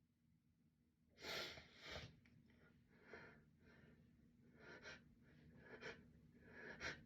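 A person's breathy gasps and sniffs: a louder pair about a second in, then fainter catching breaths every second or so, the build-up before a sneeze.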